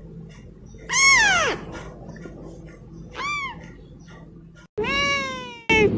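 A young kitten meowing in high calls that rise and then fall in pitch: one about a second in, a shorter one around three seconds, and a longer one near the end.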